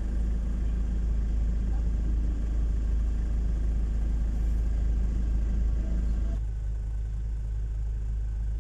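Vehicle engine idling, heard from inside the cabin as a steady low rumble. About six seconds in it cuts to a slightly quieter, duller steady rumble.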